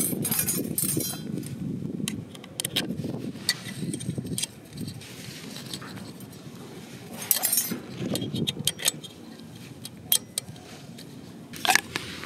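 Thin stainless-steel parts of a small folding grill (DOD Himitsu no Grill-chan) clinking and rattling as they are fitted together by hand, with scattered sharp metallic clicks and a few quick rattling clusters.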